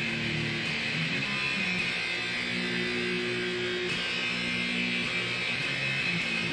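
Electric guitar playing a heavy metal riff of held chords that change every second or so.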